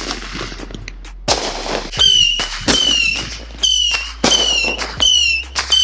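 Consumer firework cake firing a rapid string of shots, about one every 0.7 s. From about two seconds in, each shot is followed by a short, shrill, slightly falling whistle.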